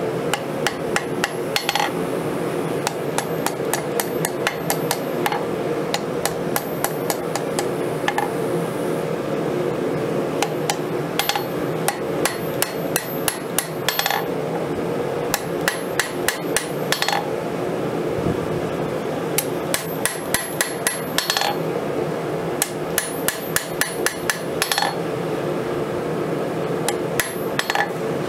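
Hand hammer striking a red-hot knife blade on a steel anvil in runs of quick blows, with the anvil ringing at each strike and short pauses between runs. A steady hum runs underneath.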